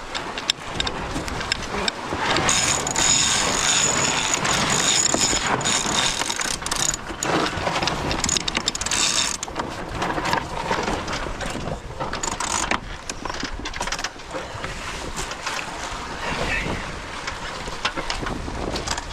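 Wind rushing over the microphone and water noise aboard a C&C 27 sailboat coming through a tack, with the mechanical clicking of a sheet winch as the new jib sheet is trimmed in.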